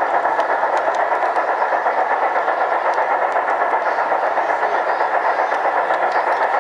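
LGB garden-scale model train running on brass track, its electric motor and gears whining steadily with a rapid, even rhythmic pulse from the wheels, heard close up from a camera riding at the front of the train.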